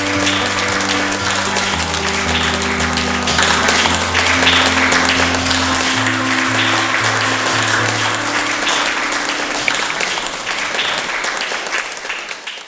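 Audience applauding over background music with slow, steady low notes; the music's low notes stop about three quarters of the way in and the applause fades out near the end.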